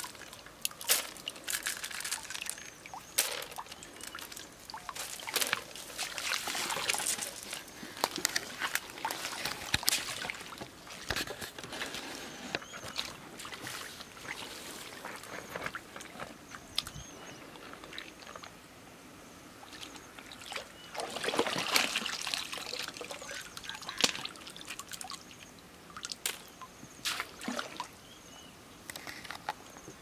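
Stream water sloshing and trickling as a large woven bamboo basket is dipped and lifted through shallow water to scoop for river snails, water draining out through the weave, in uneven swells. Scattered sharp clicks and knocks from handling the basket and its catch.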